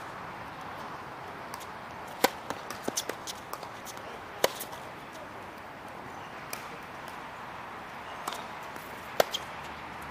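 Tennis ball being struck and bouncing on a court: a few sharp pops, the loudest about two and four seconds in and again near the end, with lighter taps between them over a steady hiss.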